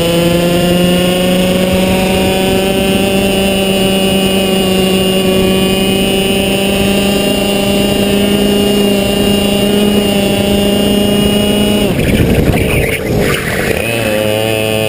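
Two-stroke racing kart engine at full throttle, its note climbing slowly for about twelve seconds along a straight, then breaking off unevenly as the throttle is lifted for a tight corner and settling at a lower pitch near the end.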